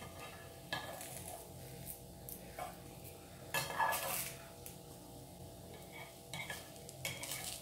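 A metal spoon scraping and clinking in the cups of an unniyappam pan as cooked appams are lifted out one by one: scattered short scrapes and clicks, the loudest about four seconds in.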